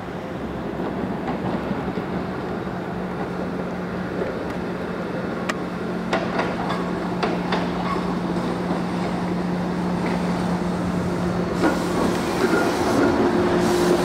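SEPTA Kawasaki K-car trolley rolling toward and past, a steady electric hum growing louder as it nears. From about halfway in, its wheels click over the switches and rail joints of the curving track.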